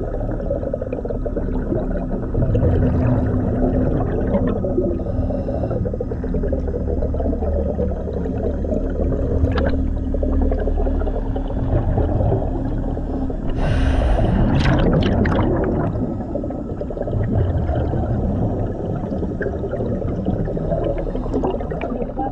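Commercial diver's breathing heard underwater: rushing exhaust bubbles over a steady low rumble, with a louder gush of bubbles about two-thirds of the way through.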